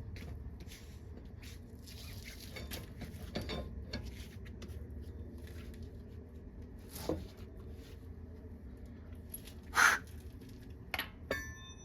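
Scattered light clicks and knocks of lug nuts and hand tools being handled on a truck wheel, with one sharp click about ten seconds in and a brief metallic ring near the end, over a low steady hum.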